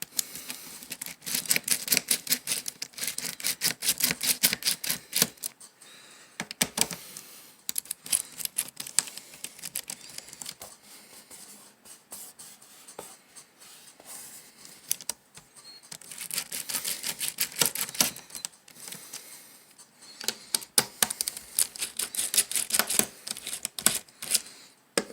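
Laptop being handled: runs of rapid small plastic clicks and taps lasting a few seconds each, with quieter gaps between.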